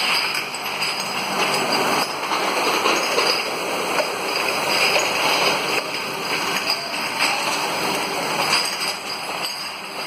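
Liquor glass bottle washing machine running: a steady noisy wash of machine and water sound with many small clicks through it.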